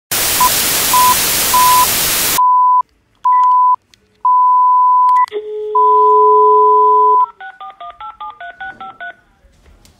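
Telephone line sounds. A burst of loud hiss carries short beeps, then longer steady beeps and a low steady dial tone follow. Near the end about a dozen quick touch-tone (DTMF) keypad tones dial a phone number.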